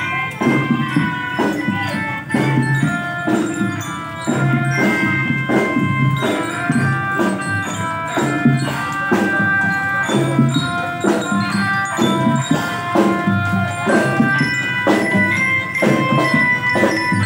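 Children's drum band playing: ringing bellyra (marching glockenspiel) notes carry the tune over a steady beat of drums.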